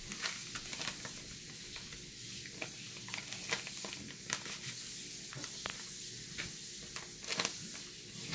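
Faint crinkling and scattered small clicks of a plastic candy wrapper being handled while someone tries to open it.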